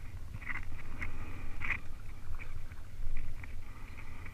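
Kayak paddle blades dipping into and pulling through the water: a run of short splashes and drips every half second or so, over a steady low rumble.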